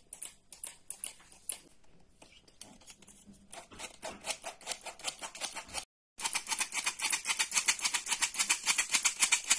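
A hand-operated metal flour sifter being worked over a glass bowl. Its mechanism gives a fast, even clicking rattle several times a second, faint at first and much louder from about three and a half seconds in, with a brief dropout around six seconds.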